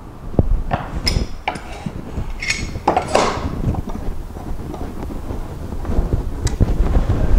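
Wooden workpieces being handled on a workbench: irregular knocks, clinks and short scrapes, the loudest about three seconds in.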